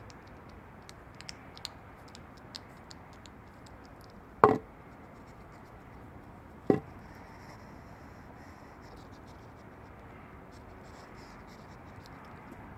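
A hedgehog at a cat food bowl: light scratching and small clicks of feeding, with two sharp knocks about two seconds apart, over a steady hiss.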